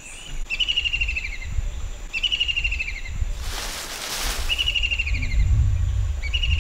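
A forest bird repeating a descending trilled song four times, each phrase about a second long, over a steady high insect drone. About three and a half seconds in there is a second-long rustling burst, and a low rumble rises near the end.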